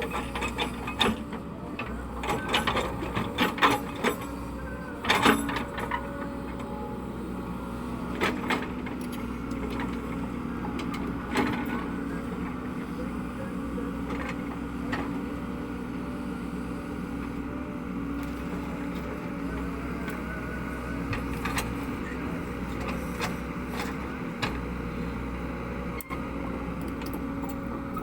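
Cat 307E2 mini excavator's diesel engine running steadily. It is broken by sharp metallic knocks and clatters in the first few seconds and a couple more later on.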